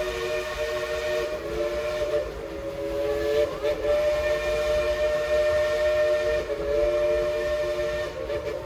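Steam whistle of the Dollywood Express locomotive No. 70 "Cinderella", a coal-fired 2-8-2, blowing one long chord of several steady tones that wavers slightly in pitch a few times.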